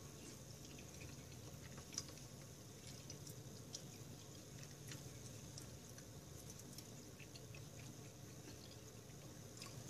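Very quiet chewing of a mouthful of soft stir-fried pumpkin, with a few faint clicks of mouth or chopsticks, one about two seconds in.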